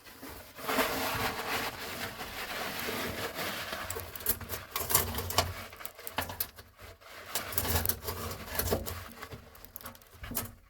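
Rustling and rubbing of a towel gripped around a kitchen faucet's rusted-on mounting nut as it is twisted and tugged by hand, with scattered knocks and clicks.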